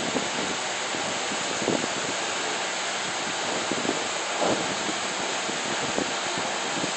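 Steady rushing room noise in a crowded venue, with a few brief indistinct voices or bumps rising out of it.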